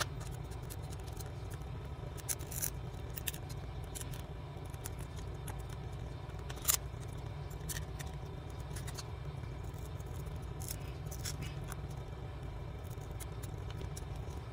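Small scraping and clicking of a tool working old screen adhesive off a phone's frame, with one sharper click about halfway, over a steady low hum.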